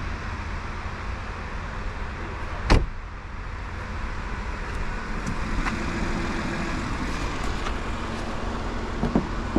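A BMW 540i's B58 turbocharged inline-six idles with a steady low rumble. A single sharp thump about three seconds in is a car door shutting.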